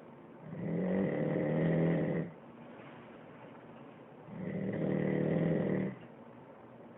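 A man snoring: two long snores about four seconds apart, each just under two seconds, with quiet breathing between. It is heard through a phone's AMR voice recording.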